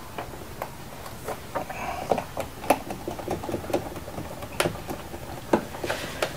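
Irregular sharp clicks and taps of a small screwdriver and a wire end against the screw terminal of a 0-1 rotary switch as the wire is fastened into its open contact, with a few louder knocks.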